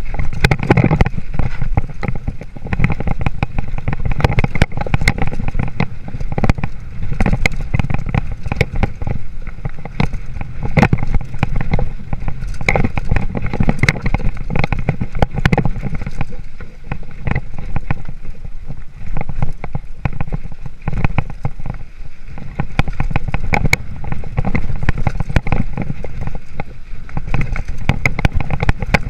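A 26-inch hardtail mountain bike (2013 Haro Flightline Sport) rattling and clattering over a rough trail, heard from the rider's chest: constant irregular knocks from the bike and tyres over a steady low rumble of wind and rolling noise.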